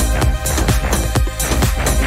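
Electronic dance music with a steady beat, playing in a DJ mix.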